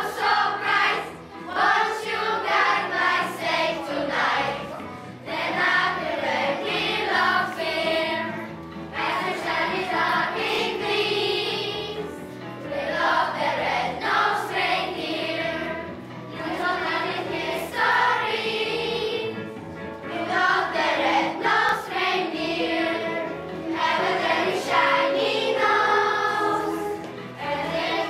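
A group of schoolchildren singing a Christmas song together with a music accompaniment.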